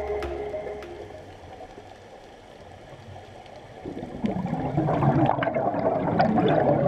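Bubbling, gurgling water, faint at first and much louder from about four seconds in, with scattered small pops.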